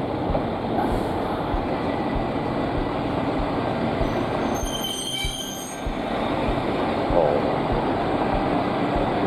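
Kyoto Tango Railway KTR 700 series diesel railcar pulling slowly into the platform, its running gear rumbling steadily on the rails. A brief high squeal, likely the brakes, comes about five seconds in.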